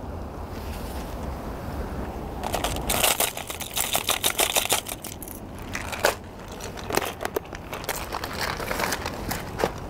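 Hands rummaging in a hard plastic lure box: fishing lures clicking and rattling against each other and the case, in a quick run of sharp clicks starting a couple of seconds in.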